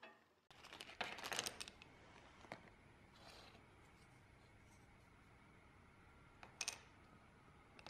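Thin laser-cut wooden discs clicking and clattering against each other and the workbench as they are handled. There is a cluster of clicks about a second in, a few single clicks after it, and a sharper pair near the end, with near quiet between.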